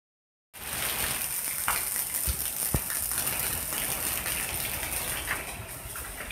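Rain falling steadily, a hiss of drops, with a few sharp drip taps standing out about two seconds in. It starts about half a second in.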